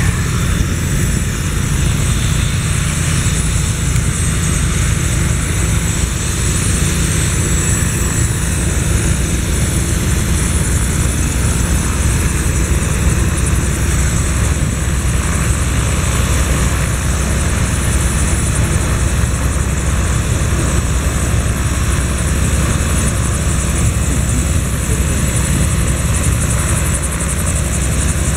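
Helicopter running on the ground at close range: a loud, steady low rotor drone with a thin, constant high whine above it.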